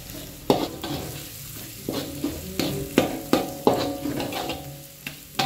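Metal spatula stirring and scraping spice paste in a wok, clinking against the pan about a dozen times at an irregular pace, each clink ringing briefly, over the light sizzle of the paste, aromatic leaves, galangal and lemongrass frying in oil.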